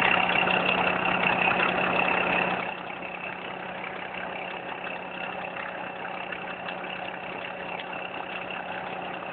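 Tow truck's engine idling steadily, louder for the first few seconds and then dropping to a lower, even hum about three seconds in.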